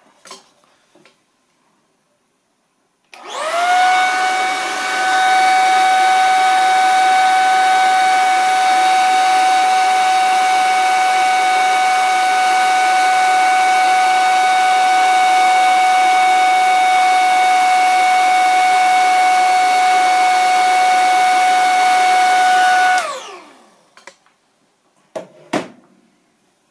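Handheld hair dryer switched on about three seconds in. It runs steadily for about twenty seconds, a loud rush of air with a steady whine, then is switched off and winds down with a falling pitch. A couple of short knocks follow near the end.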